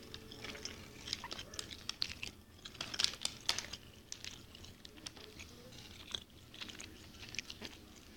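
A person chewing a mouthful of sandwich close to the microphone, with quiet, irregular mouth clicks.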